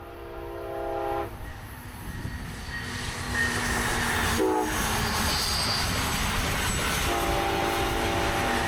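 Brightline passenger train blowing its chord horn for a grade crossing: the end of a long blast, a short blast about four and a half seconds in, then another long blast starting near the end. Under the horn the train's running rumble grows louder as it passes close by.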